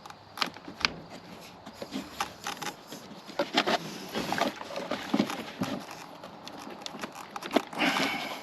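Irregular clicks, knocks and light rattles of car parts being handled and tugged at by hand while working on a car.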